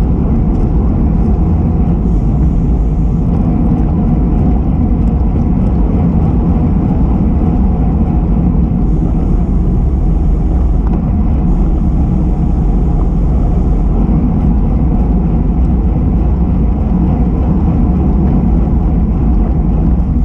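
Loud, steady wind noise on the microphone of a camera riding on a moving road bicycle.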